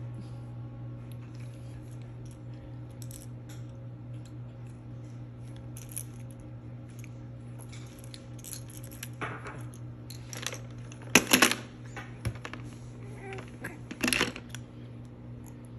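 Plastic clacks and bead rattles from a baby's suction-cup spinner toy as it is mouthed and grabbed. They come in scattered bursts, loudest about eleven seconds in and again near fourteen seconds, over a steady low hum.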